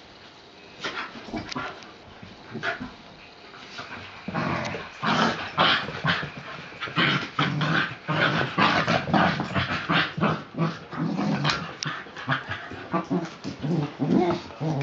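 Two small dogs play-fighting, growling as they wrestle. Sporadic at first, the growling turns louder and nearly continuous from about four seconds in.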